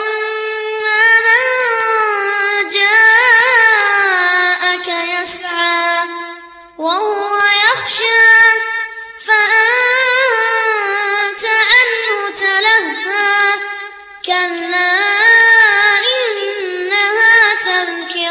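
A high, young-sounding voice reciting the Quran in the melodic, drawn-out style, with no accompaniment. Long ornamented phrases are separated by short breaths about seven, nine and fourteen seconds in.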